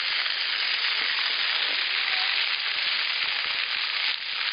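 Splash-pad fountain jets spraying and spattering onto wet paving and shallow water: a steady hiss with fine crackle.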